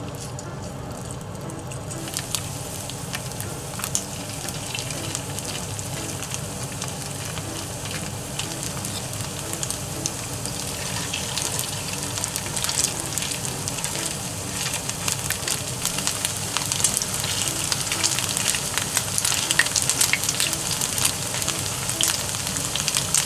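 Chicken-and-potato nugget patties shallow-frying in oil in a frying pan, a steady sizzle with crackling that grows louder as more spoonfuls of mixture go into the pan.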